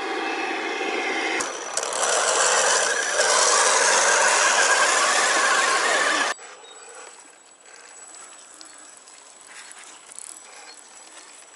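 Electric motor and gear whine of a radio-controlled scale 4x4 truck driving through deep mud, mixed with the noise of its tyres churning the wet mud. It cuts off abruptly about six seconds in, leaving only a much quieter, fainter drive sound.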